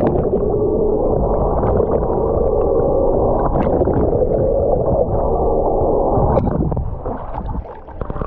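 Muffled underwater sound: a steady drone from the boat's outboard motor carried through the water, with gurgling water. It weakens near the end.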